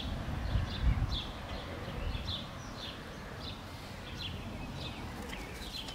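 A small bird chirping repeatedly, short high falling notes about twice a second. A low rumble sounds in the first second.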